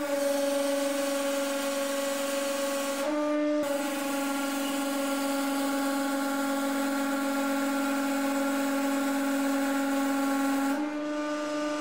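A 150-ton hydraulic press running under load, a steady pitched hum with a hiss above it, as the ram squeezes a solid brass cylinder past 60 tons. The tone breaks briefly about three seconds in, and the hiss drops away near the end while the hum carries on.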